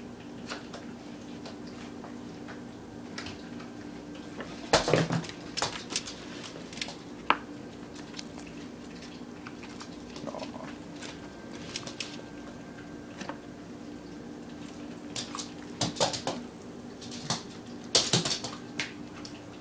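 Short clusters of clicks and knocks, the loudest about five seconds in and again near the end, from a plastic lunch-meat container with a red lid being handled and a small greyhound's paws on a table and hardwood floor, over a steady low hum.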